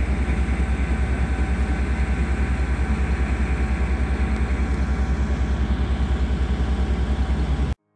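Heavy tow truck's diesel engine idling steadily with a fast, even low throb; it cuts off suddenly near the end.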